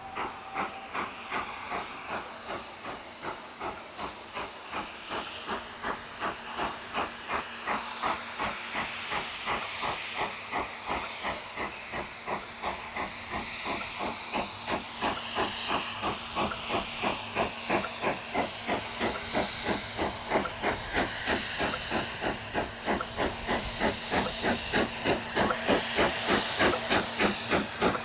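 Steam locomotive exhaust chuffing in an even beat that quickens as it gathers speed, growing louder toward the end.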